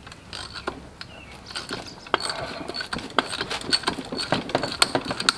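Socket ratchet clicking as the head bolts are worked loose on a Kohler K301 cast-iron engine's cylinder head; a few scattered clicks at first, then quick runs of clicking from about a second and a half in.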